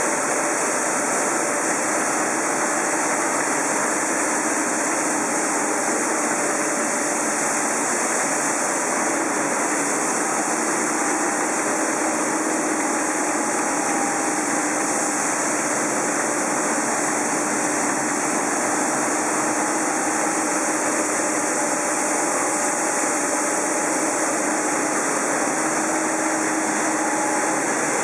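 Plastic-film pelletizing extruder line running: a steady, even machine noise with faint hum tones that does not change.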